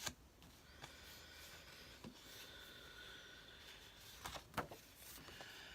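Faint handling of paper sheets: soft rubbing and an occasional tap, with a few louder rustles of paper a little past the middle.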